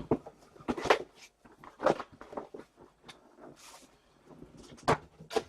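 Trading-card boxes and packs handled on a table: a string of light knocks and taps with soft rustling, the loudest knocks about a second in, two seconds in and near the end.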